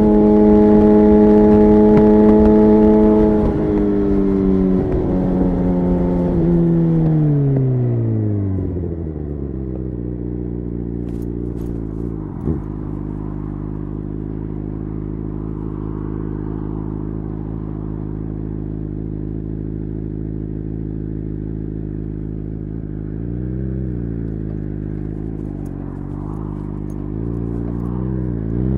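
2009 Suzuki GSX-R 750's inline-four through a Yoshimura exhaust. It holds steady revs, then drops as the throttle closes and settles to a steady low idle, with one short blip of the throttle late on. Near the end the revs climb steeply.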